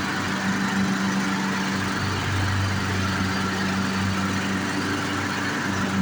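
Troy-Bilt lawn mower's small engine running steadily at an even pitch.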